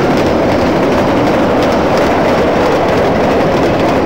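Steady rolling rumble of a train's cars passing.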